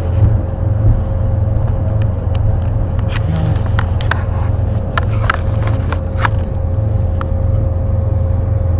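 Steady low rumble of a moving vehicle heard from inside, with a constant hum tone over it and a few light clicks scattered through.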